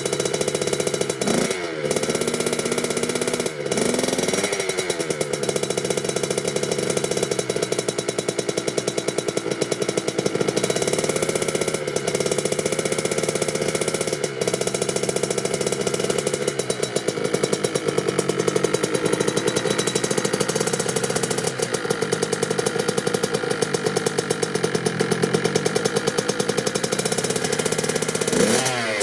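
Kawasaki KX65 two-stroke dirt bike engine running steadily while warming up from a cold start. It gives short throttle blips just after the start, around four seconds in and near the end.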